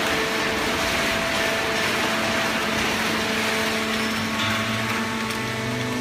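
Horizontal paper baling machine and its feed conveyor running: a steady mechanical din of hiss and motor hum, with a deeper hum coming in about four and a half seconds in.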